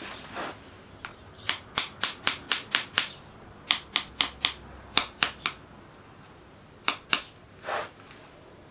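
Sharp taps of a pointed hand tool on wheel patterns bedded in a sand mould, rapping them loose so they can be drawn out. The taps come in a run of about seven at roughly four a second, then a second run of about seven, then two more, followed by a short soft scrape.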